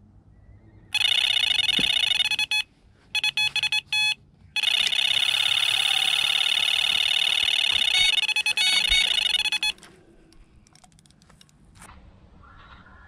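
Electronic carp bite alarm sounding a run: a steady high tone, then a burst of fast stuttering bleeps, then a continuous tone for about five seconds that cuts off suddenly. It is the sign of a fish picking up the bait and taking line.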